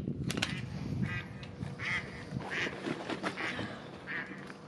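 Telescopic aluminium ladder clicking as it is let down against the hull, followed by a run of about five short squawks spaced under a second apart.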